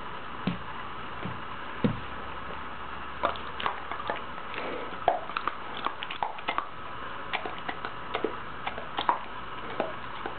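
An old dog's mouth working at dental floss tied around a finger: irregular small clicks of teeth and tongue, a few at first and then many more from about three seconds in, over a steady background hiss.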